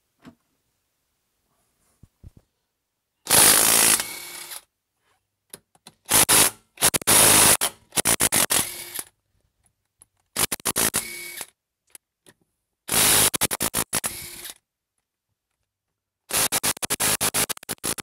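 Cordless DeWalt impact wrench hammering lug nuts off a car wheel, in about seven short bursts with gaps of a second or two between them.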